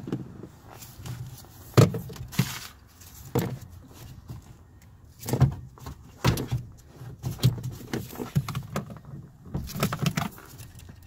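Irregular clicks and knocks as latch cables and their plastic clip holder are handled and worked loose inside a stripped Kia Sedona sliding door, the bare sheet-metal door panel knocking under the hand.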